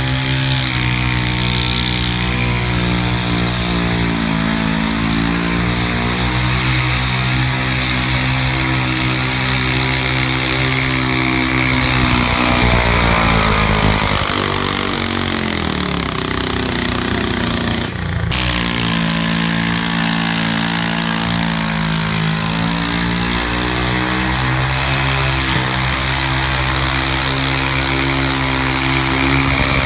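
Super stock garden pulling tractor engine running hard under the load of a weight-transfer sled. Its pitch sinks for a few seconds around the middle as the engine is pulled down, then a sharp click is heard and the revs climb again.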